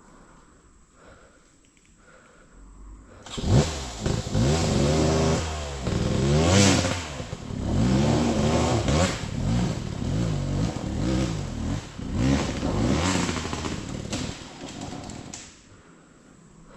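Dirt bike engine that comes in suddenly about three seconds in and revs up and down in repeated bursts for about twelve seconds while tackling a steep trail climb, then drops away near the end.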